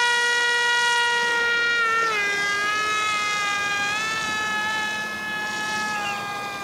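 Electric motor and propeller of a small sub-250 g fixed-wing model plane in flight: a steady high-pitched whine with overtones. It drops in pitch about two seconds in and fades gradually as the plane flies away.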